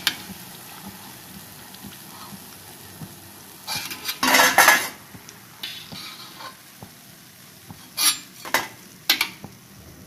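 Metal slotted spoon scraping and clanking against a kadhai as fried corn tortilla chips are scooped out of hot oil, over a soft sizzle of the oil. The loudest clatter comes about four seconds in, with three sharp knocks near the end.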